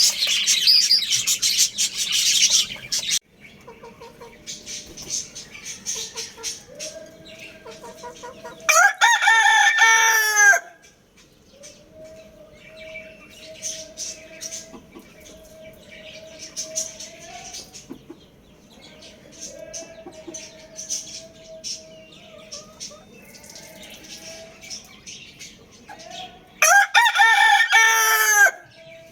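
A rooster crowing twice, once about nine seconds in and again near the end, each crow a loud call of under two seconds. Small birds chirp densely for the first three seconds, and softer bird calls and chirps carry on between the crows.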